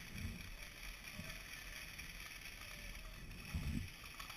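Faint movement noise on a worn camera: a few soft low thumps over a steady hiss, the loudest a little after three and a half seconds.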